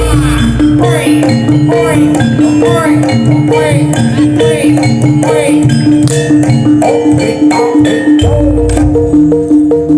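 Loud live traditional Javanese percussion ensemble accompanying a barongan dance. A gong-chime or metallophone repeats one note about twice a second over drums and a wavering melody, with a deep low boom near the start and again about eight seconds in.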